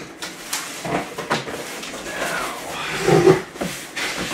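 Cardboard shipping box and its packing being handled: cardboard flaps rustling and scraping, with a few short knocks.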